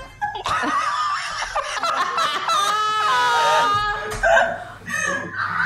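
Hard, high-pitched human laughter, loudest for the first four seconds and then dropping to quieter chuckling.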